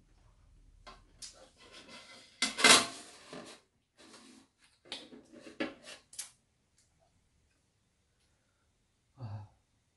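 Bowls, spoons and chopsticks clinking and rattling on a metal tray, in irregular bursts, the loudest about three seconds in.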